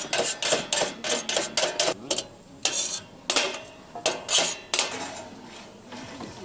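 A quick run of short clattering knocks and clinks, like hard objects being handled and set down, about fourteen in the first five seconds, then stopping.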